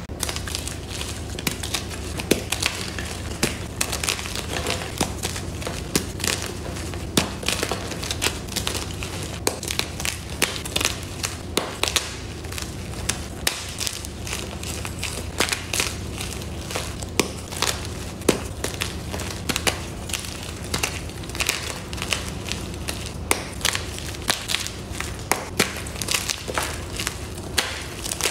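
Bare hands crushing and crumbling blocks and lumps of gym chalk, a dense run of crunching with many sharp snaps as pieces break apart.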